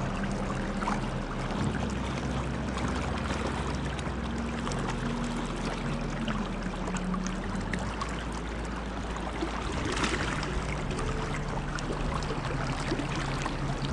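River water flowing steadily around the wading angler, a continuous rushing wash.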